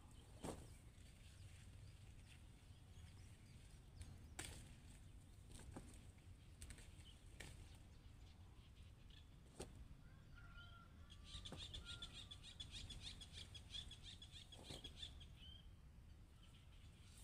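Faint field ambience with a low rumble, a few sharp clicks and snaps as eggplants are picked from the plants. In the second half a bird trills rapidly for several seconds, with a couple of short chirps just before.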